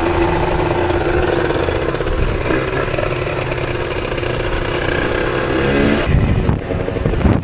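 Moped engine running at low speed in traffic, its pitch rising as it revs up about six seconds in, over a steady rumble of wind on the microphone.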